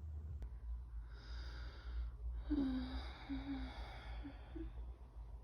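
Soft breathing: two long, quiet exhalations, the second starting with a faint low voiced sound, over a steady low hum.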